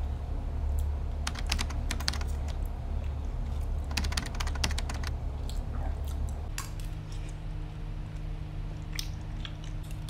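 A metal fork clicking and scraping against a ceramic pasta bowl while eating, in short quick runs of clicks, over a steady low hum.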